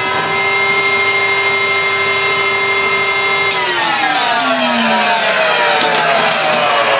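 Numatic Henry vacuum cleaner's motor running with a steady whine. About three and a half seconds in, the whine starts to drop gradually in pitch while the sound stays just as loud.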